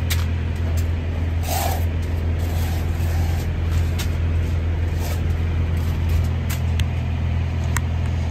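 Semi truck's diesel engine idling steadily, with a short burst of air hiss about a second and a half in and a few light clicks later on.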